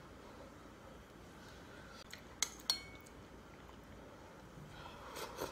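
A metal spoon clinks against a ceramic bowl while eating: two sharp clinks a few tenths of a second apart about two and a half seconds in, the second ringing briefly, then more clinking near the end.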